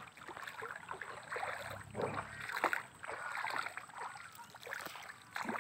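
Water sloshing and swishing in irregular strokes as a person wades through shallow river water and moves a bamboo-framed lift net in it.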